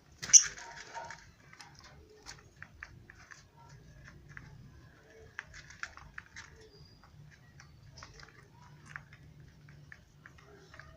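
A pet parrot gives one short loud call about a quarter second in, followed by many scattered light clicks and taps.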